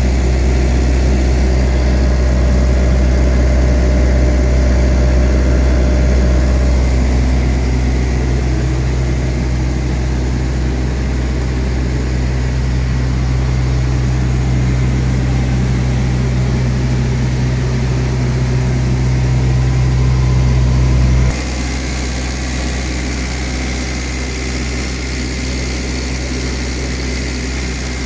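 Small diesel engine of a Carrier trailer refrigeration unit running steadily with a low hum. About three-quarters of the way through, the sound suddenly drops and becomes quieter.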